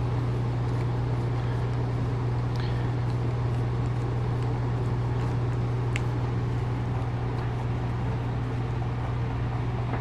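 Steady low machine hum at an even level, with a single faint click about six seconds in.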